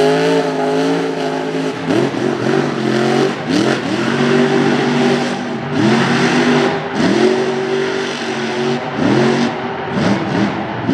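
Supercharged engine of a mega mud truck revving hard over and over as it powers through a mud pit. Its pitch climbs and holds about six times, with some clatter on top.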